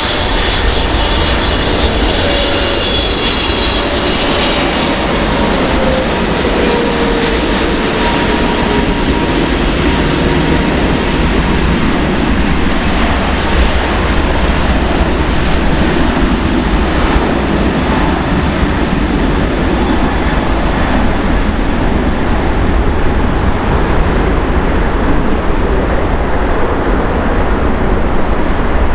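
Airbus A380's four Rolls-Royce Trent 900 turbofans running as the airliner taxis, with a jet whine falling in pitch over the first several seconds, then a steady jet roar.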